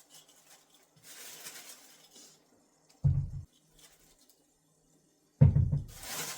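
Kitchen handling noises: a soft scraping rustle, a dull thump about three seconds in, then a louder thump near the end as tap water starts running into the sink.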